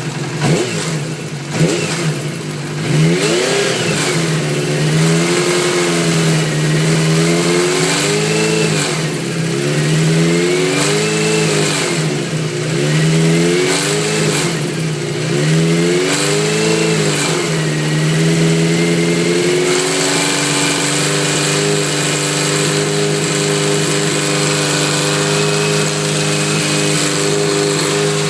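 Kawasaki Z400FX air-cooled inline-four engine revved up and down over and over, about once every two seconds, then held at a steady speed for the last third. The owner reports an abnormal noise that appears only at about 3000 rpm, with the cause unknown.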